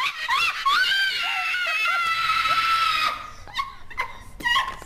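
A woman's shrieking, hyena-like laugh: a few high gliding yelps, one long held squeal from about a second in to about three seconds, then shorter yelps near the end.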